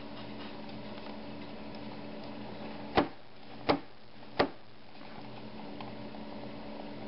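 A hand tapping a cable modem makes three sharp knocks, evenly spaced about two-thirds of a second apart, over a steady low electrical hum.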